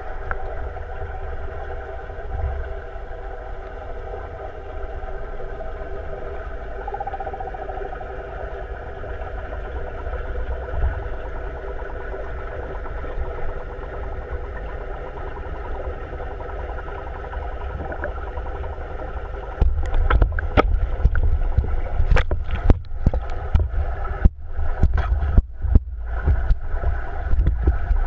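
Sound picked up by a waterproof camera under water in an aquarium tank: a steady hum made of several even tones over a low rumble, typical of the tank's pumps and filtration heard through the water. About two-thirds of the way in, irregular knocks and crackles begin and become the loudest sound.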